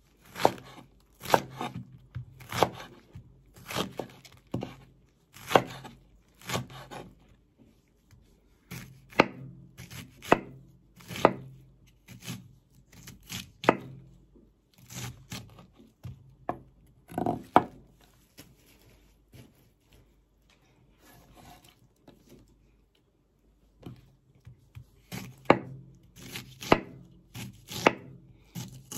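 Kitchen knife slicing banana blossom on a cutting board: sharp chopping strokes about once a second, stopping for several seconds past the middle, then coming back a little quicker near the end.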